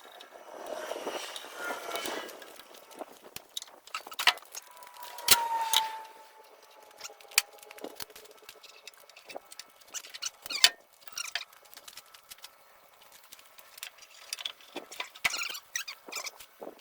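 Scattered metallic clicks and knocks of hand tools and metal parts while the compressor's oil reservoir tank is being unbolted, with one short squeal, falling slightly in pitch, about five seconds in.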